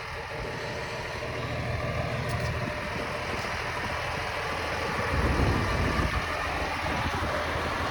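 A vehicle engine idling steadily, growing briefly louder about five seconds in.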